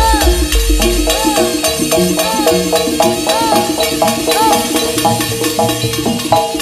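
Live East Javanese jaranan gamelan music: a stepped metallophone melody over drumming, with a repeated swooping note that rises and falls about twice a second. Deep drum beats drop out about a second in.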